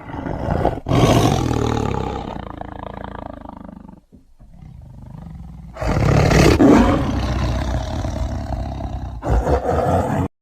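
A big cat roaring: one long roar that fades away over about three seconds, then a second long roar from about six seconds in that breaks into short pieces near the end and cuts off suddenly.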